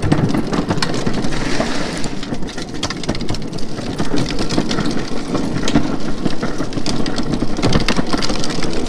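Drift trike rolling fast along a concrete sidewalk: a loud, rough rumble of the wheels on the pavement, with many quick clicks and rattles.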